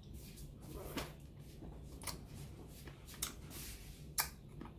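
Faint sharp clicks, about one a second, with a brief crinkly rustle a little past the middle: small handling and mouth noises as a pickle coated in spicy ranch seasoning is picked up and tasted.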